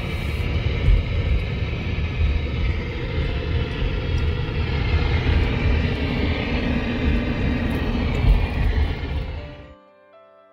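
Road noise inside a moving car: a steady low rumble of tyres and engine. Near the end it cuts off suddenly and soft background music with held notes takes over.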